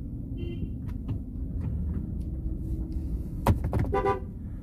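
Low steady rumble of an SUV's engine and road noise heard from inside the cabin while driving. There is a sharp click about three and a half seconds in, followed by a brief pitched sound.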